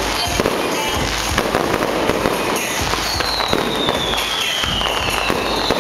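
Fireworks display: a rapid, dense string of bangs and crackling from bursting shells. From about halfway through, a high whistle glides slowly down in pitch.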